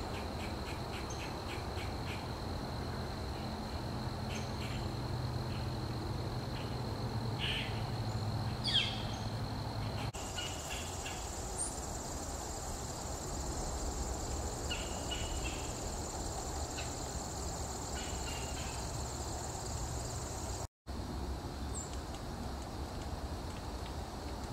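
Outdoor woodland ambience: insects trilling as a steady high drone, the pitch jumping higher after a cut about ten seconds in. Short bird chirps and calls are scattered throughout.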